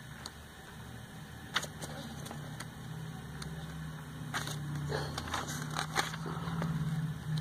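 Glossy catalog pages being turned and riffled, a few sharp paper rustles, under a low steady motor hum that grows louder from about three seconds in.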